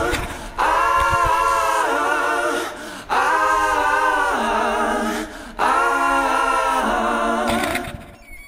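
Soundtrack music: an unaccompanied sung vocal passage of three long held chords, each about two seconds, fading out near the end.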